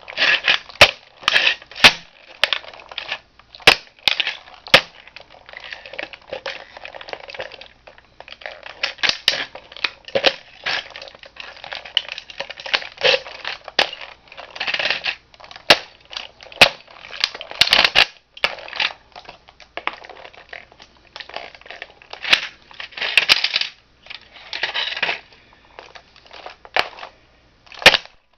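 Toy car being crushed underfoot: irregular sharp cracks and snaps with stretches of crunching as it breaks apart.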